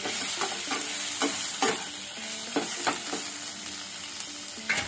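Spatula scraping and stirring onions, capsicum and tomato with spices in a nonstick kadhai, over a steady frying sizzle. The scraping strokes come every half second or so at first and thin out after about three seconds.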